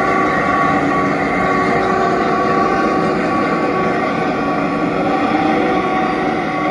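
Train running past on the rails: a steady loud rumble with several steady tones held over it.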